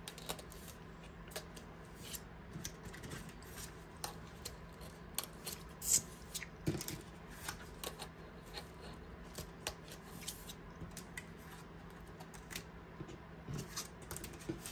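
Frosted plastic cash envelopes being handled and flipped on the rings of a ring binder: soft plastic rustling with scattered small clicks and taps, the sharpest about six seconds in.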